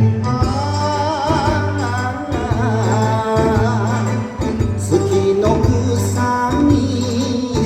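Recorded Japanese ondo dance song: a singer with marked vibrato over a steady, bouncing bass beat.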